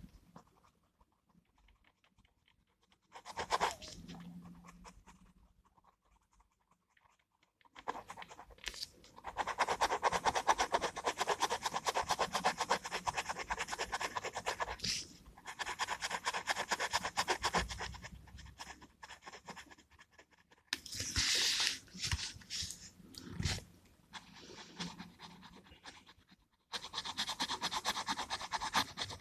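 Gel pen scratching on paper in quick, dense strokes, in spells of several seconds with short pauses between.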